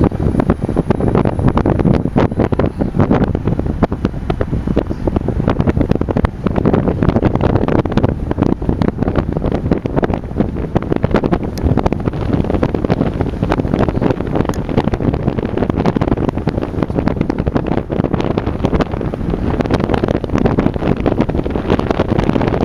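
Wind buffeting the microphone: a loud, steady rumbling roar that flutters unevenly throughout.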